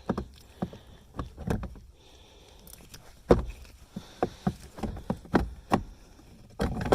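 Irregular knocks and clicks, about a dozen, as a replacement rear blower motor is handled and worked into place inside an Acura MDX's side panel.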